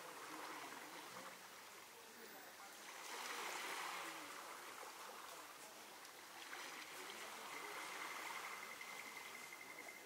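Faint seaside ambience at night: soft water noise that swells and fades like small waves lapping at the shore. A faint, high, steady trill comes in during the second half.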